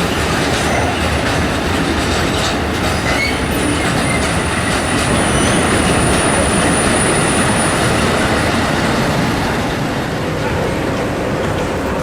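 A recorded sound effect of a real train rolling through a station: the wheels rumble steadily over the rails with a few clicks at the rail joints, and a high, thin wheel squeal rises about four seconds in and dies away after about four more seconds.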